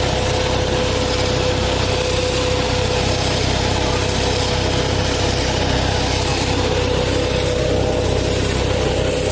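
KF-601 tractor-driven hazelnut-collecting machine running steadily with its tractor, a constant machine drone with a steady whine.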